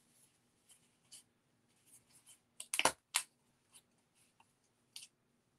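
Light handling rustles of thin laser-cut wood and card, with a cluster of sharp clicks about three seconds in as a small wooden tree shape is pressed out of its wooden sheet, and one more click near the end.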